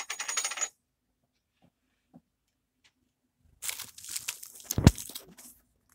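Close rustling and crinkling as a shirt and hands brush against the recording device, with a short scrape at the start and a single thump near five seconds in.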